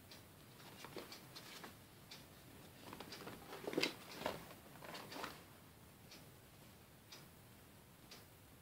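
German Shepherd head mask being handled and turned over: faint scattered clicks and rustles, with a louder cluster of handling noise between about three and five seconds in.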